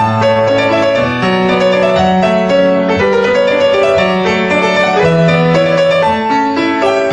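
Solo grand piano playing a new-age piece: held bass notes change about once a second under a steady flow of higher notes.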